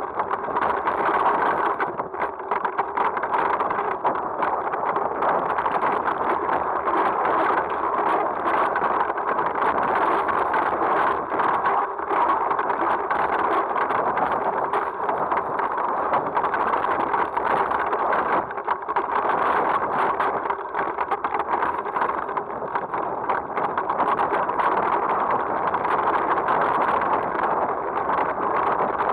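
Mountain bike rolling fast down a rough dirt trail: steady rushing noise, likely wind on the camera's microphone, with many small knocks and rattles from the bike over roots and bumps.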